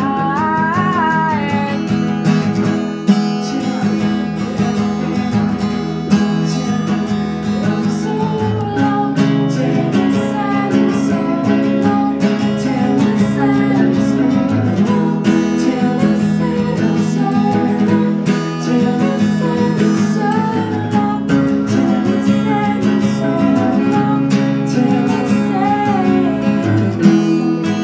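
Two acoustic guitars played together live, strummed chords with picked notes over them. A woman's singing voice carries on for about the first two seconds, then the guitars go on alone as an instrumental passage.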